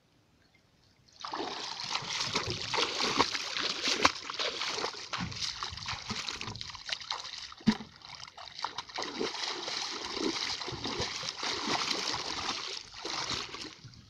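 Splashing and sloshing of legs and hands moving through shallow muddy water, starting suddenly about a second in and going on as irregular splashes.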